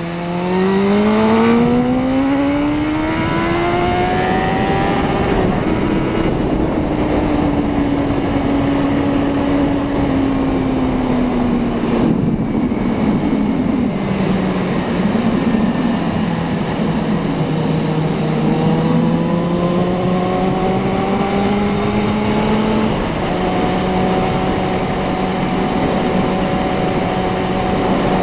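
Suzuki Bandit 650N's inline-four engine under way: the revs climb hard for about five seconds, fall away slowly, then climb again and hold steady near the end.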